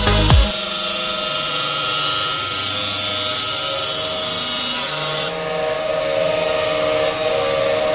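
Stone CNC router's cutting saw running through stone: a steady mechanical whine over a grinding hiss. The high hiss drops away abruptly about five seconds in while the whine carries on.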